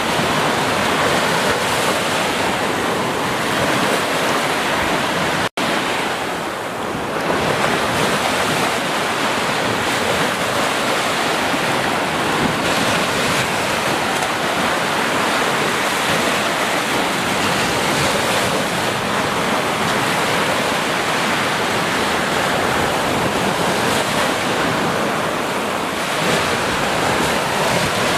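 Ocean surf: small waves breaking and washing up the beach as white foam, a steady rushing wash of noise. The sound cuts out for an instant about five seconds in.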